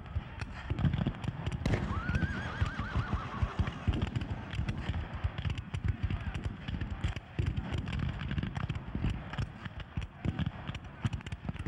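A horse whinnies once, a wavering call about two seconds in, over continuous hoofbeats and many short sharp clicks.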